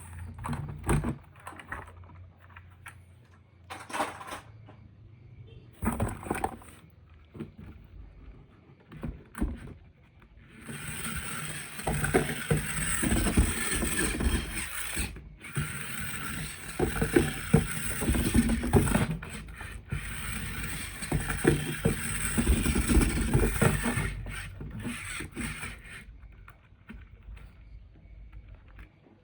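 Plastic toy vehicles and their packaging being handled. Scattered clicks and rattles come first, then from about ten seconds in a longer stretch of denser scraping and rattling, which thins out near the end.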